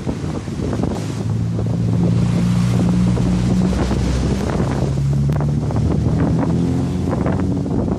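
Wind buffeting the microphone over rough waves breaking and splashing, with a steady low engine hum underneath from about a second in that shifts pitch partway through.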